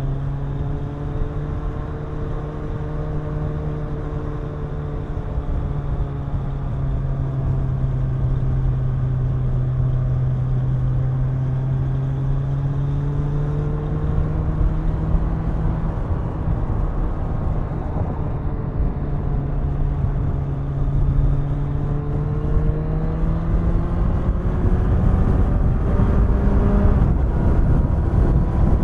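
Kawasaki Ninja 1000's inline-four engine and exhaust running at a steady cruise, the engine note drifting gently. Near the end it rises slightly as the bike speeds up, and wind and road noise grow louder.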